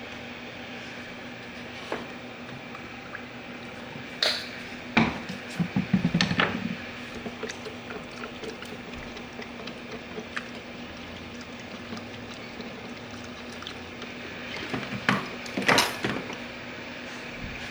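Steady background hum with scattered clicks, rustles and scrapes of objects being handled on a workbench. The handling comes in two busier bursts, about four to six seconds in and again around fifteen to sixteen seconds in.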